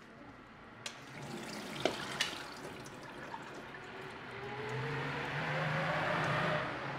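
Water pouring and splashing into a stainless steel sink as instant noodles are drained through a metal colander, growing louder toward the end. A few light knocks of the colander and cup in the first couple of seconds.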